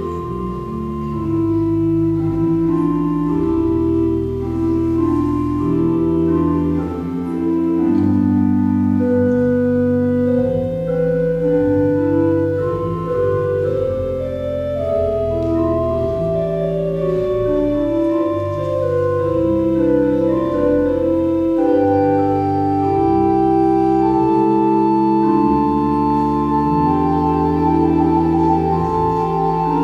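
Pipe organ playing slow Baroque music: sustained chords over a low pedal bass line, with a melody moving above in long held notes.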